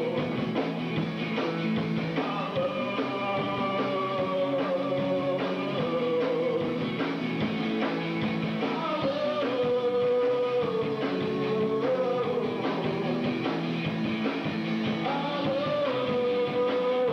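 Alternative rock band playing live, with guitars, drums and a voice holding long sliding notes. The sound is dull, its top end missing, as on an old VHS tape.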